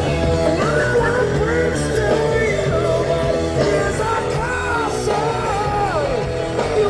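Rock song with a singing voice over bass and drums.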